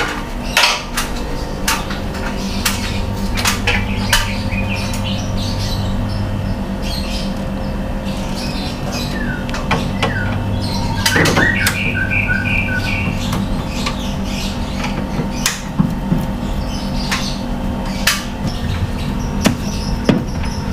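Short high chirps, like birds, over a steady electrical hum, with many sharp clicks scattered throughout.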